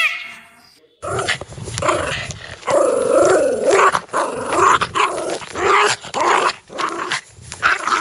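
Two dogs growling in short bouts as they wrestle in shallow water, with water splashing; it starts about a second in.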